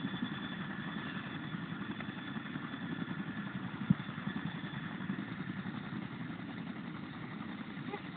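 CH-47 Chinook tandem-rotor helicopter running on the ground with its rotors turning: a steady, rapidly beating low rumble with a thin, steady high whine over it. A single sharp click about four seconds in.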